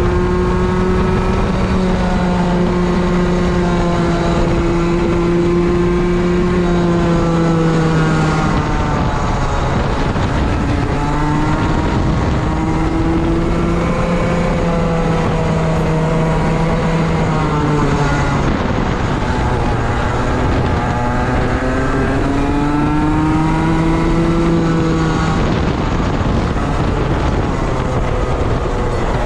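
Racing kart engine running hard on the straights. Its pitch drops off as the driver lifts for corners, about eight seconds in, again near the middle and once more near the end, then climbs back as the kart accelerates out.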